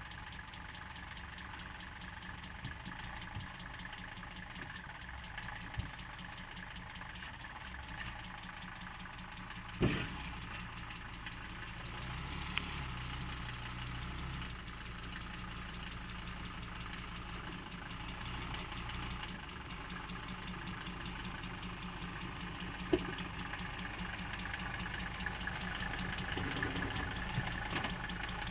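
Mercedes-Benz G 250 D 'Wolf' five-cylinder diesel engine running steadily at low revs with diesel clatter as the vehicle crawls over steel obstacle ramps. A single loud knock comes about ten seconds in, with a few lighter clicks later on.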